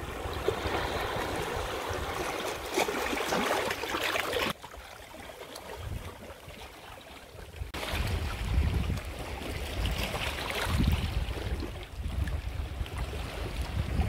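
Small sea waves washing and splashing around shoreline rocks, with wind rumbling on the microphone in the second half. The sound drops suddenly about four and a half seconds in and comes back louder near eight seconds.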